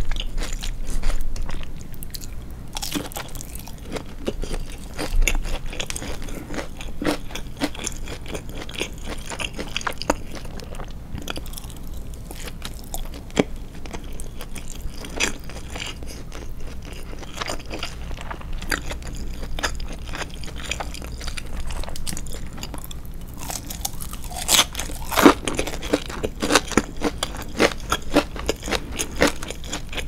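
Chewing of a deep-fried breaded cutlet, with many small crunching crackles that grow densest near the end. The store-bought cutlet's breading is not very crisp, so the crunch is soft.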